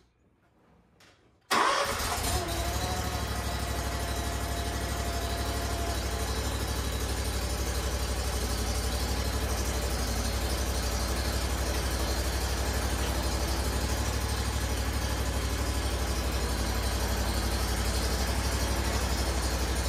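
Hustler Fastrak SDX zero-turn mower's engine starting abruptly about a second and a half in, then running steadily at a fast idle. It runs while the freshly refilled hydrostatic drives are worked with the rear wheels off the ground to bleed out air.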